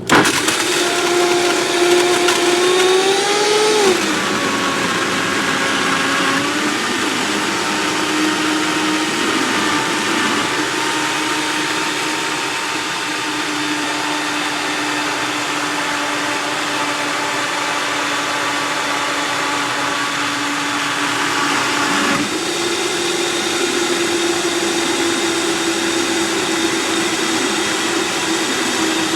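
Blender running, blending a thick smoothie of frozen fruit, avocado, banana and spinach with water. The motor's pitch drops sharply about four seconds in, holds lower, then jumps back up about 22 seconds in.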